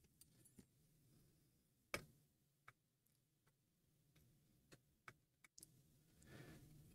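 Near silence broken by a few faint, light clicks of a small hand tool touching the circuit board, the clearest about two seconds in, with a soft rustle near the end.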